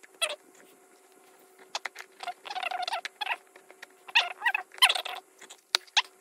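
Fingernails picking at and peeling the foil tape band from the edge of a hard drive's metal casing: irregular scratching and crinkling in short bursts, with a few sharp clicks near the end.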